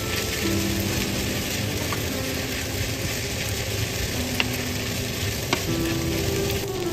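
Glass noodles and vegetables for japchae sizzling in a hot frying pan as a wooden spatula stirs and tosses them, with a few sharp clicks of the spatula against the pan.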